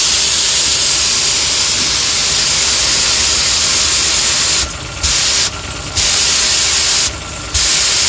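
High-pressure water jet from a plunger-pump pressure washer, spraying through a wheeled under-car wash attachment on the lance: a loud, steady hiss. Past the halfway mark and again near the end, the spray cuts off briefly three times while a low rumble carries on underneath.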